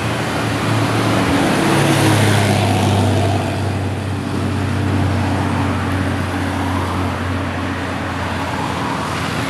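Road traffic on a hill climb: a heavy vehicle's engine drones steadily over tyre and road noise, loudest a few seconds in.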